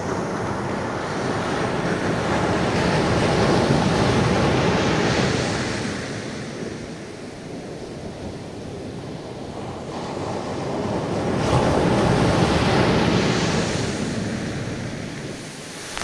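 Small waves breaking and washing up a sandy beach. The surf swells twice, loudest a few seconds in and again about twelve seconds in, with a quieter wash between.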